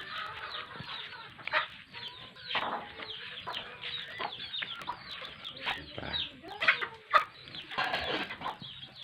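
Chickens clucking: many short calls overlapping one another throughout.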